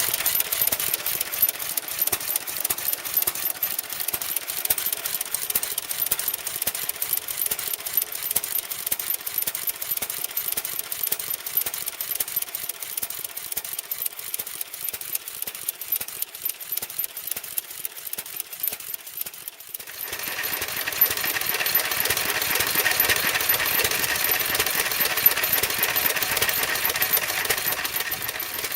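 A machine running with a rapid, steady clatter that becomes louder and fuller about twenty seconds in.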